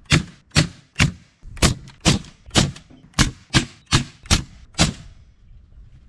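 Hammer blows, about eleven steady strikes at a little over two a second, stopping about five seconds in.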